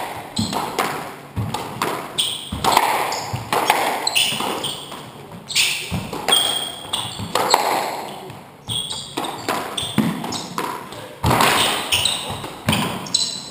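Squash rally: repeated sharp hits of the ball on rackets and the court walls, with shoes squeaking on the wooden floor.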